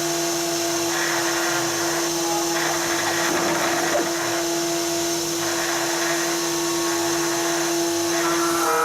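Spindle motor of a home-built CNC router running at a steady pitch. Over it, the whine of the stepper motors shifts every second or so as the machine moves, changing again near the end.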